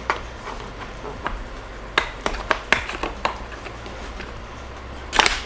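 Hands handling small plastic seat parts: scattered light clicks and taps, with a short louder rustle near the end.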